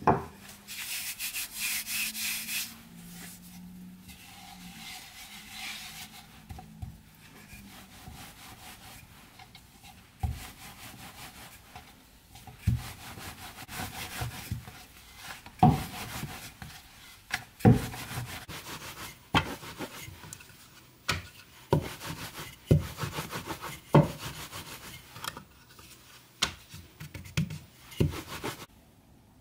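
Wooden rolling pin rolling out spinach pasta dough on a floured wooden cutting board: rubbing strokes broken by loud knocks of the pin on the board, about one every one to two seconds from about a third of the way in. It opens with a knock and a couple of seconds of hiss as flour is scattered over the dough.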